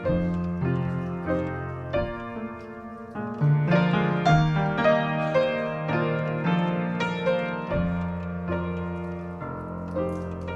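Solo piano playing slow, sustained chords over held bass notes, a new chord or melody note struck every half second to a second.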